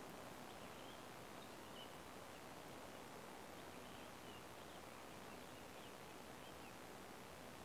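Quiet outdoor ambience: a faint, steady hiss with scattered faint, short, high bird chirps.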